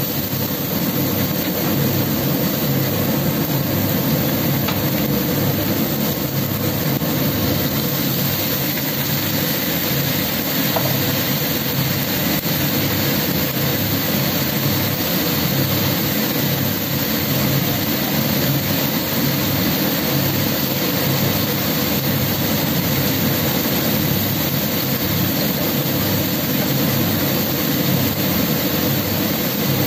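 Steady rushing drone of a kitchen fan running over a wok of luffa, bean sprouts and tofu cooking on the cooker.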